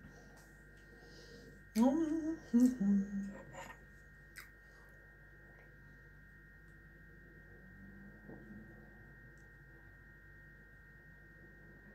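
A woman humming briefly, a closed-mouth 'mmm' that bends up and down for about a second and a half, starting about two seconds in. A faint steady high whine runs underneath throughout.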